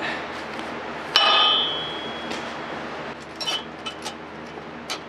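A single sharp metallic clang about a second in, a piece of steel ringing with a high tone that dies away over about a second, followed by a few light clicks and knocks of metal being handled.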